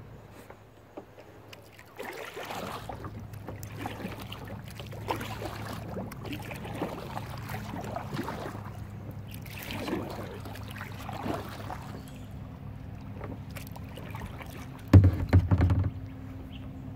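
Kayak paddle strokes swishing through the water every second or two, over a steady low hum of a distant motorboat engine. A few loud low thumps about two seconds before the end.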